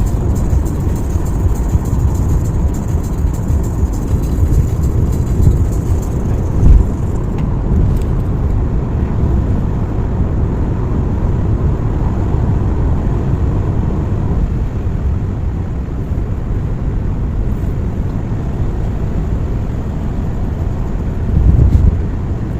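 Steady road and engine noise heard inside a moving car's cabin, with a brief knock about seven seconds in and a short louder rumble near the end.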